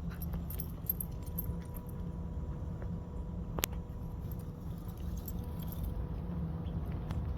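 Faint steady electric whine over a low rumble, with scattered light jingling clicks and one sharp click about three and a half seconds in.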